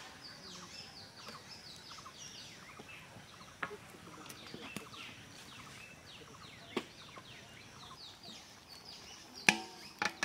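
Birds chirping with many short falling notes, over a few sharp knocks of a wooden spatula against an iron wok. Near the end a metal plate clatters onto the wok as a lid, the loudest sound.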